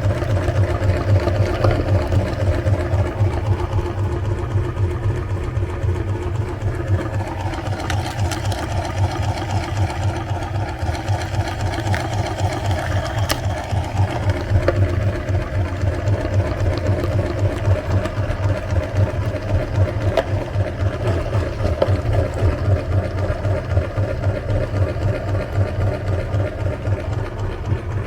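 Meat grinder running steadily under load as it grinds ice cream, with a low motor hum and a fast, even pulsing.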